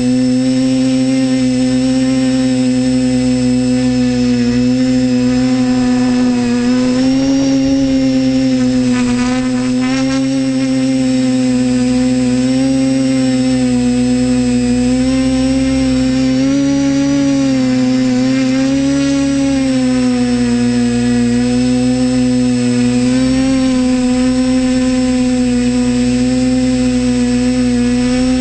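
Multirotor drone's electric motors and propellers whining continuously, heard from a camera on board the drone. The pitch wavers up and down a little as the throttle changes, with a low rumble of prop wash underneath.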